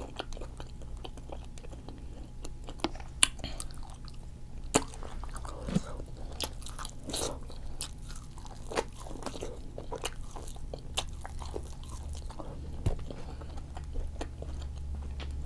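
Close-miked chewing and biting of seafood-boil food, with irregular sharp clicks and crunches over a steady low hum.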